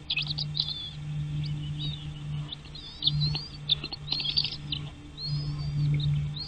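Small birds chirping: a rapid run of short, high chirps and a few warbling phrases, over a steady low hum.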